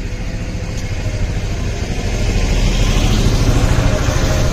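A motor vehicle engine running close by: a deep, heavy rumble with a faint steady whine above it, growing slightly louder.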